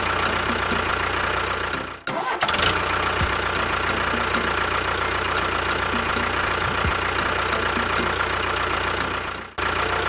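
Engine running steadily, broken by two brief gaps, one about two seconds in and one near the end.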